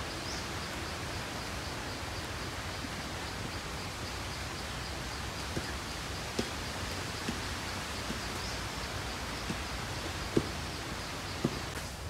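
Steady outdoor background hiss with a faint high chirp repeating evenly several times a second, and a few soft ticks scattered through the second half.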